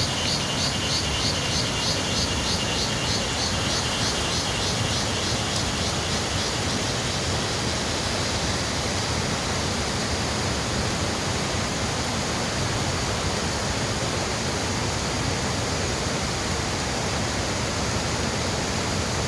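Waterfall pouring in a steady, even rush of water, in full flow after continuous rain. Over it for the first few seconds, insects chirp in a fast pulsing rhythm of about three pulses a second, fading out about five seconds in.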